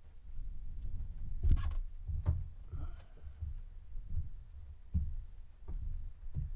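Irregular dull thuds and a few light knocks from a straight-edge tool worked along a boat's window frame to smooth sealant, over a low steady rumble.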